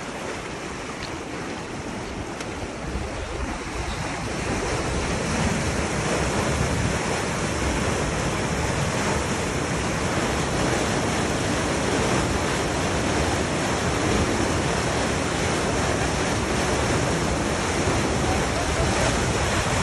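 Water gushing out of a culvert into a concrete irrigation canal, a steady churning rush that grows louder over the first five seconds or so and then holds.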